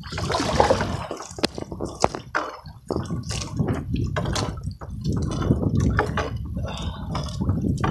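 Wet gillnet being hauled by hand over the side of a small boat, water dripping and splashing off the mesh in many irregular small splashes.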